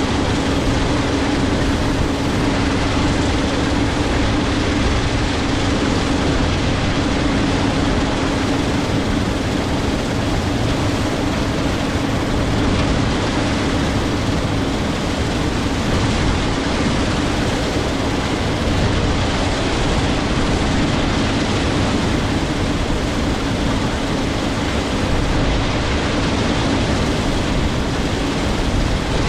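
Case IH 7230 Axial-Flow combine running steadily at close range while harvesting soybeans with a MacDon FD75 FlexDraper header: a loud, even machine noise with a steady drone.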